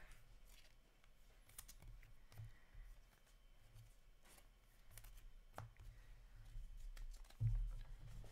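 Faint rustling and light clicks of hockey trading cards being flipped through by hand, with a soft low thump near the end.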